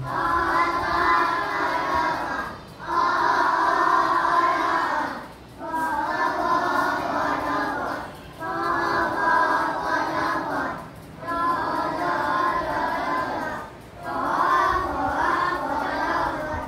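A class of young children chanting together in unison in a sing-song rhythm, in phrases of about two and a half seconds with short pauses for breath between them.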